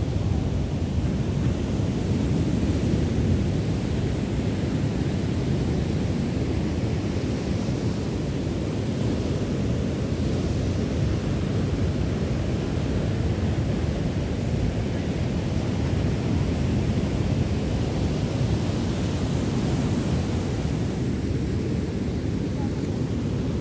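Ocean surf breaking and washing up a sandy beach, heard as a steady low noise, mixed with wind buffeting the microphone.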